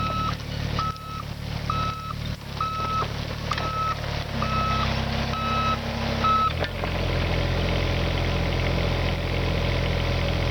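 Kubota excavator's travel alarm beeping steadily, about one beep a second, over its diesel engine running. The beeping stops about two-thirds of the way through and the engine runs on steadily.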